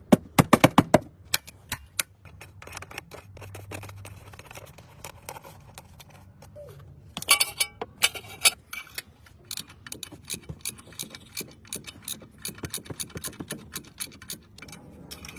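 Irregular clicks, taps and knocks of hand tools and car parts being handled, with a short stretch of scraping about seven to eight and a half seconds in.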